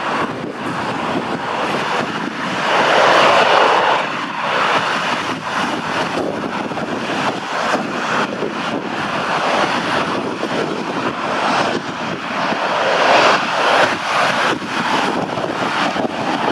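Jet noise from an Airbus A320 airliner on landing approach, a steady roar that swells louder about three seconds in and again near the end. Gusty wind buffets the microphone throughout.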